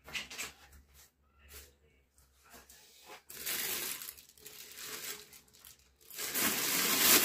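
Thin plastic bag wrapped around a stainless steel cooker pot crinkling as hands handle it: scattered short rustles at first, then louder, continuous crinkling from about six seconds in.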